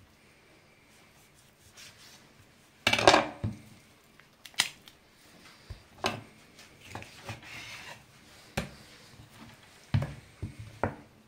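Kitchen knife cutting raw chicken legs apart on a wooden cutting board: a string of sharp knocks of the blade on the board and short scrapes of cutting, the loudest about three seconds in.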